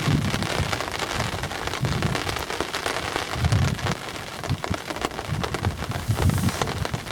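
Rain falling, a dense patter of small drop ticks over a steady hiss, with intermittent low rumbles.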